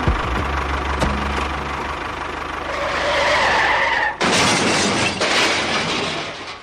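A small motor running with a low hum and a few clicks, then an abrupt change about four seconds in to a loud, even rushing noise.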